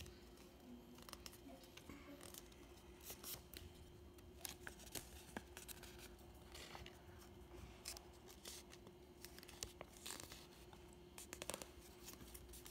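Faint rustling and short scattered crackles of a printed paper strip being folded and creased by hand along its fold lines, over a faint steady hum.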